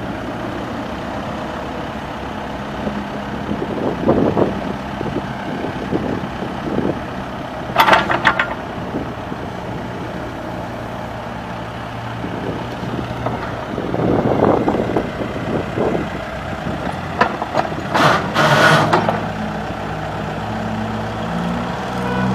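Case 580M Series 3 backhoe loader's diesel engine running steadily, with brief sharp metallic clatters twice, about a third of the way in and again past three quarters.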